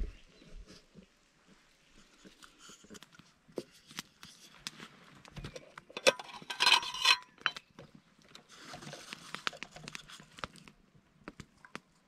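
Hands handling the lid of a small metal camp kettle, with a scraping metal clatter about six seconds in, amid small campfire crackles and rustles. A soft hiss follows for about two seconds.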